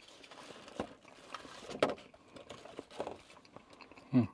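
Plastic bags and food packaging rustling and clicking as they are rummaged through and handled, in a few separate bursts. A short vocal grunt comes near the end.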